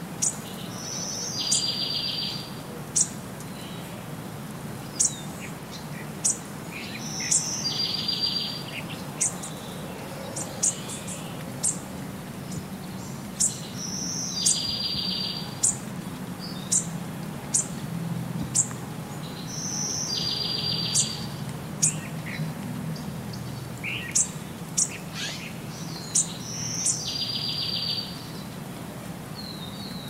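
Birds singing over a steady hiss of light rain. One bird repeats the same short song, ending in a buzzy trill, five times about six seconds apart, among many short sharp chirps.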